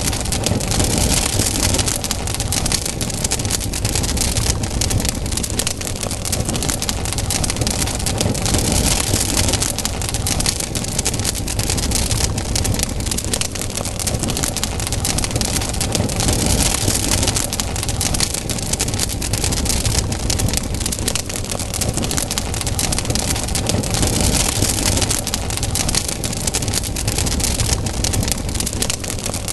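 Campfire burning: dense crackling and popping over a steady rushing hiss that swells and fades every several seconds.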